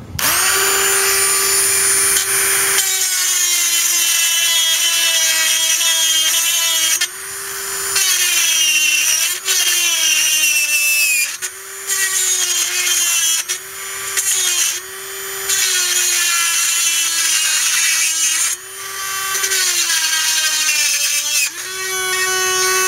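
Dremel rotary tool with a small bit, not a cutoff wheel, cutting into a rusted, seized exhaust pipe to split it free. It makes a loud high whine whose pitch sags each time the bit bears into the metal and climbs back as it eases off, with several brief breaks.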